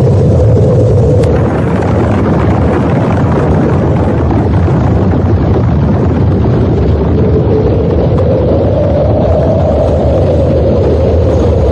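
Loud, steady rumbling noise with a droning note in the middle that drifts up slightly in pitch about eight seconds in and back down near the end.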